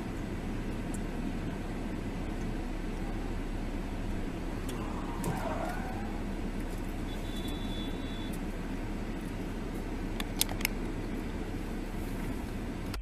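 Steady road and engine noise of a car driving, as picked up by its dashcam, with two sharp clicks a little after ten seconds in.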